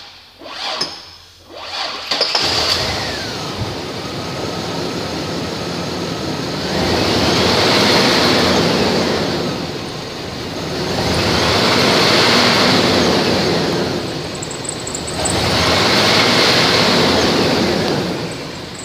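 1999 GMC Sonoma engine cranked by the starter, catching about two seconds in and settling into a steady run. It is then revved three times, each rev rising and easing back over a few seconds.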